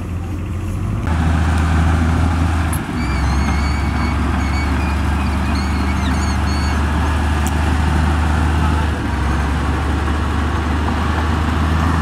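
Crawler bulldozer diesel engine running with a steady low drone. A few faint, short, high squeaks come through in the middle.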